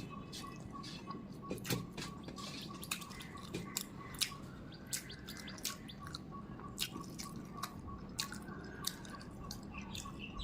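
Irregular wet clicks and smacks of someone eating rice and chicken curry, with faint bird chirps in the background.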